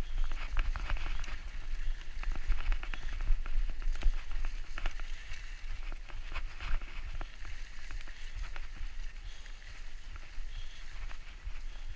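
Mountain bike riding fast over a bumpy overgrown trail: a steady low rumble of wind and jolting, with many small knocks and rattles from the bike and tall grass and plants swishing against it.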